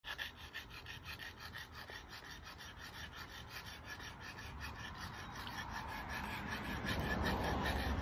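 Steel blade of a small hatchet being rubbed back and forth on a wet whetstone: a quick, even, rasping stroke, several times a second. A steady rushing noise, like the hose's running water, grows louder toward the end.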